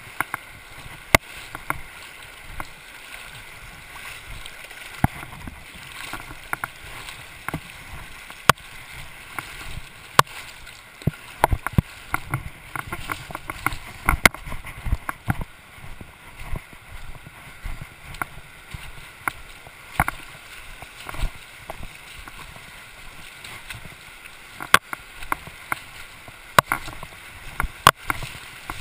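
North Fork of the Virgin River rushing over its stony bed in a steady wash, with frequent irregular sharp knocks and clicks from the handheld camera being moved close to the stones and water.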